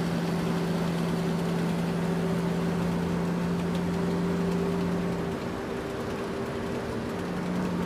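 Large truck engine running steadily with a low hum. About five seconds in the hum drops away and the sound gets a little quieter; it returns near the end.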